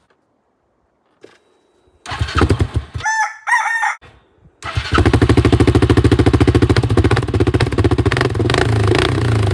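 Yamaha Grizzly 700's single-cylinder four-stroke engine starting through its modified exhaust with a custom tip: it catches briefly about two seconds in and stops, then fires again a little before the five-second mark and settles into a steady, rapidly pulsing idle. Between the two starts, around three seconds in, there is a loud crowing call like a rooster's.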